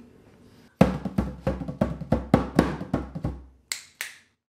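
Drums closing out a song: about ten strikes at roughly three a second, each with a deep thump, then two short high hits, and the music stops.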